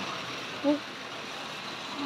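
Tri-ang model railway train running on the layout's track: a steady mechanical whirr and rattle from the small motor, gearing and wheels. A single short pitched blip about two-thirds of a second in stands out above it.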